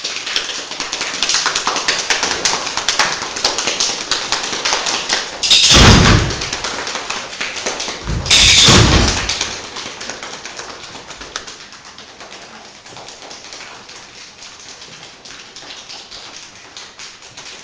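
A rain choir: a group making the sound of a rainstorm, a dense patter of many quick taps and clicks that builds up, with two loud full crashes about six and eight and a half seconds in, then thins out and dies away.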